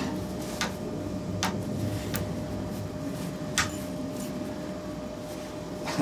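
A few short clicks and light knocks as a heavy wood log is handled and turned by hand against a lathe, over a steady low workshop hum.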